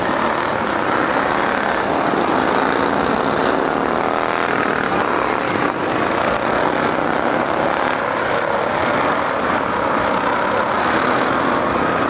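Several racing riding-lawnmower engines running hard together in a steady, dense drone, with faint pitches rising and falling as the mowers rev.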